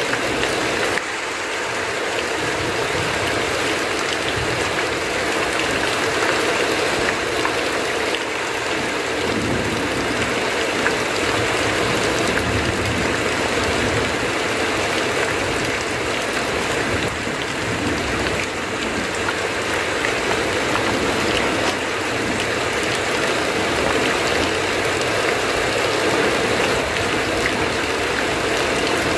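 Heavy rain falling steadily on a roof, with water pouring off the eaves in an even, unbroken rush.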